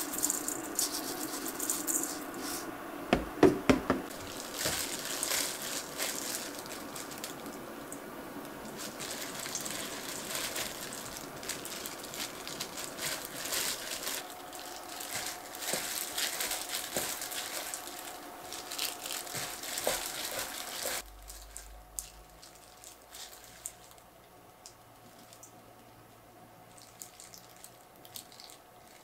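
Rattling, clicking and water sounds of food being handled in a kitchen, with a cluster of louder clatters about three seconds in; after about 21 seconds it turns much quieter, with only a few faint clicks.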